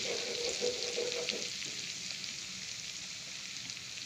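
Sliced garlic and curry leaves sizzling in hot butter in a pan: a steady sizzle with small crackles that eases slightly.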